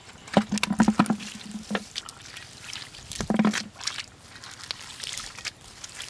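Wet mud and shallow water squelching and splashing as hands work in a muddy hole, with a cluster of sharp knocks and clicks in the first two seconds and again a little past three seconds.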